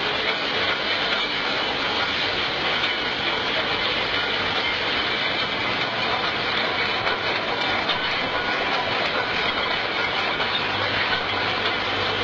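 Automatic rotary bottle filling and capping machine running: a steady, dense clatter of machinery and glass bottles moving through it. A low hum joins near the end.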